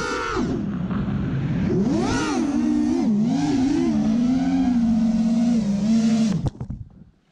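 FPV racing quadcopter's electric motors and propellers whining close on the onboard camera, the pitch swinging up and down with the throttle and then holding steady. The motors cut off suddenly near the end.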